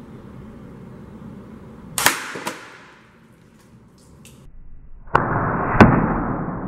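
Air rifle pellets hitting water-filled aluminium soda cans: two sharp cracks about half a second apart, then after a quieter stretch another sudden hit that turns into a steady rushing noise as water sprays out, with the loudest crack just before the end.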